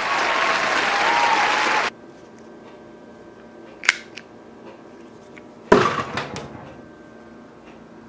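A loud steady hiss that cuts off abruptly about two seconds in. Then a sharp click, and nearly two seconds later a loud knock with a short rattle as the blade of a modified flip car key is jabbed into a wooden post.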